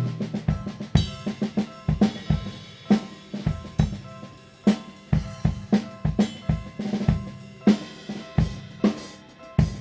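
Drum kit played in a steady groove, with bass drum, snare, hi-hat and cymbal hits and a heavy accent about once a second. It is played along to a railroad crossing and trains.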